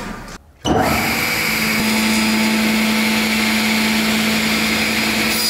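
Sliding table saw running: its motor and blade make a steady mechanical hum with one constant tone. It comes in abruptly just under a second in and holds steady.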